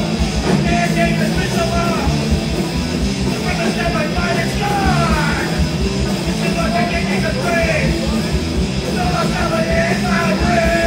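Hardcore punk band playing live: distorted electric guitars, bass and drums, with the singer shouting into the microphone.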